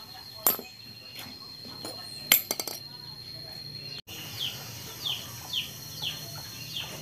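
Metal hand tools clinking twice, sharp and ringing, then a run of short high chirps repeating about twice a second.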